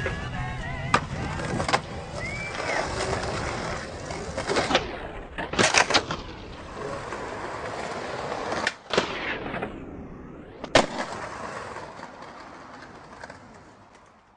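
Skateboard wheels rolling on concrete, broken by sharp clacks of the board popping and landing, with a quick cluster of clacks about halfway through. The sound fades out near the end.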